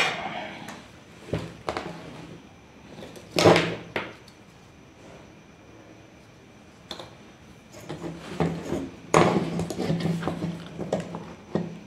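Handling noise on a hard workbench as a circuit board and tools are moved, picked up and set down: a couple of light knocks, a louder clunk about three and a half seconds in, then a run of clatter from about eight to eleven and a half seconds.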